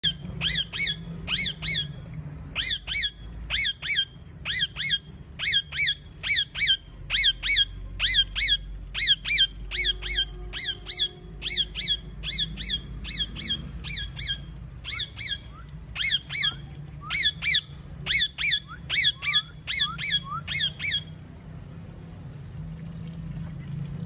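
Rose-ringed (Indian ringneck) parakeet screeching: a long run of short, harsh calls, about three a second and often in pairs, that stops about three seconds before the end.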